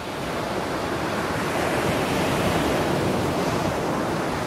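Steady rushing noise of ocean waves and surf.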